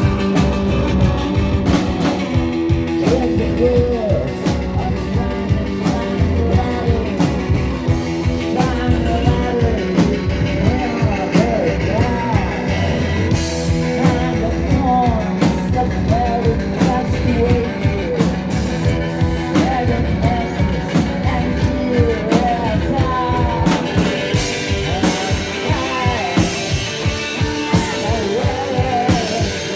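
A live rock band playing with electric guitars, bass and a steady drum beat. A voice sings over it from about three seconds in.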